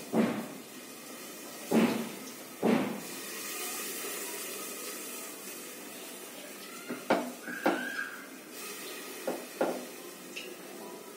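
Hands patting and pressing rice-flour and bottle gourd dough flat on a wooden board: several separate soft thumps at irregular intervals, a few in the first three seconds and a few more later on.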